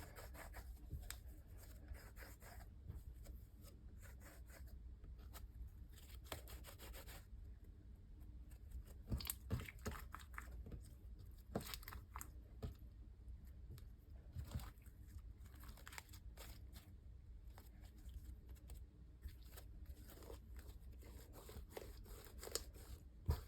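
Faint sticky crackles, small pops and clicks of thick slime being rolled up by hand, with a few sharper clicks through the middle.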